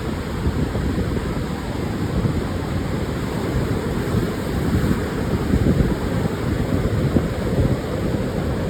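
Pacific surf washing onto a sandy beach, with wind buffeting the microphone. The rush of the waves and the low rumble of the wind run without a break, swelling a little with each wave.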